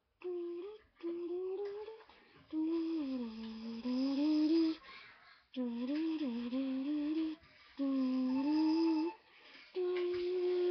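A girl humming a slow tune: about six long notes whose pitch slides up and down, the last one held steady.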